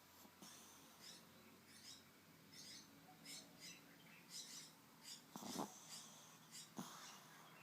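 A sleeping pet snoring quietly: short wheezy, whistling breaths about once a second, with two louder, deeper snores near the end.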